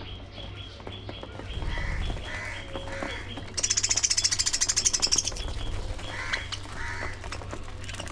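Aviary budgerigars calling: a run of short high chirps repeating several times a second, with scattered rounder calls. About three and a half seconds in, a loud, fast-pulsing high trill lasts under two seconds.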